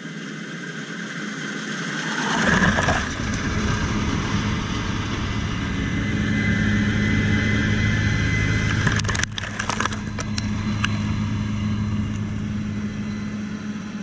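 Case IH combine running close over the crop: its engine drone comes in suddenly about two seconds in and holds steady, with a high whine in the middle. A quick cluster of sharp clicks comes about nine seconds in.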